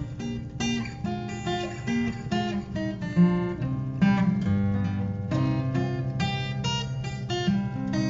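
Background music on acoustic guitar: a run of quick melody notes over sustained low bass notes.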